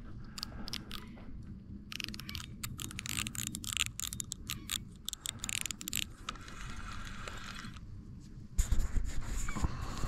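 Fishing reel's ratchet clicking rapidly for several seconds, then running in a steadier whirr, during a carp run. A few heavy knocks near the end.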